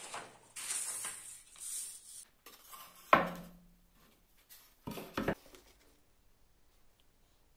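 Handling sounds at a workbench: paper rustling and sliding for the first two seconds, then one sharp knock about three seconds in and a quick pair of knocks around five seconds, as a wooden board, the drawing and a ruler are set down on the table.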